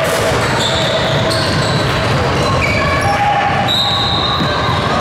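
Basketball game in a gym: sneakers squeaking on the court in short high tones, many times over, above a steady din of play and voices.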